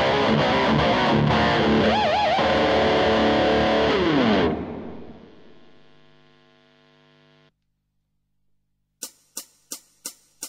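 Distorted electric guitar through a Blackstar HT5R tube combo amp, playing a rock lead with a vibrato bend, then a downward slide into a chord left ringing and fading. After a short silence, evenly spaced clicks begin near the end, about three a second.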